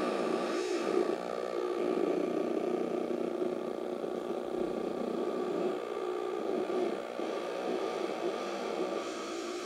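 Four-oscillator theremin with oyster-shell antennas: several electronic tones mixed into a dense buzzing drone, their pitches sliding and wavering as hands move near the antennas, with one steady higher tone above them.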